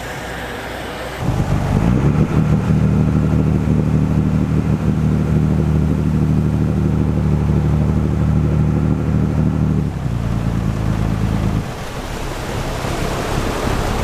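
A large diesel engine running with a steady low drone, cutting in suddenly about a second in and dropping away near the end, leaving wind and water noise.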